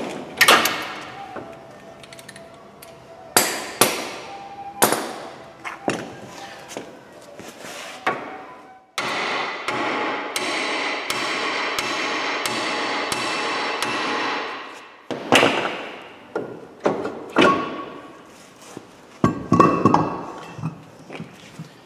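Sharp metal clanks and knocks from the van's brake caliper and front hub parts being worked loose, each ringing briefly. About halfway through, a steady mechanical noise runs for roughly five seconds.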